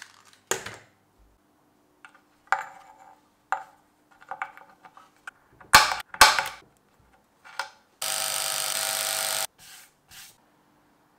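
Handling knocks and clicks of tools and wooden parts, a few at a time, then a power drill runs steadily for about a second and a half near the end.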